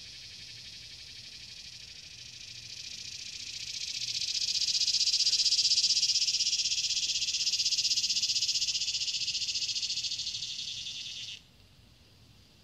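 High, steady buzzing of a cicada singing. It swells over the first few seconds, holds loud, then cuts off suddenly near the end.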